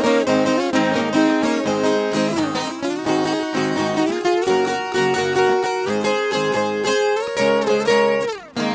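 Instrumental break of a sertanejo caipira song on plucked strings, a viola caipira picking a melody over strummed acoustic guitar, with a quick run sliding down near the end.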